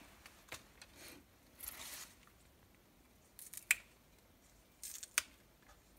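Crisp water spinach (morning glory) stems snapped apart by hand: a few sharp snaps, with a short rustle of the wet leaves about two seconds in.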